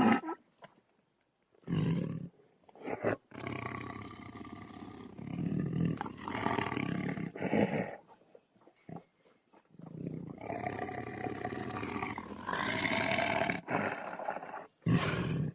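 Tiger roars: several separate calls of differing length with silent gaps between them, the two longest in the middle and a short one near the end.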